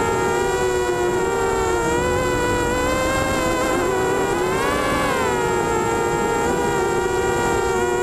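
Mini FPV quadcopter's Emax MT1806 brushless motors spinning 5x3 propellers in flight, heard from a camera on the frame: a loud, steady multi-tone whine. Its pitch sags a little about two seconds in, then rises and falls again around the middle as the throttle is worked to keep the quad in the air.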